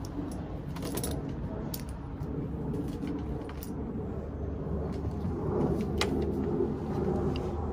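Light clicks and small metallic rattles of fittings and parts being handled, a handful of separate clicks over a steady low hum.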